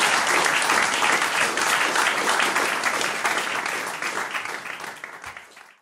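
Small audience applauding, fading out over the last two seconds.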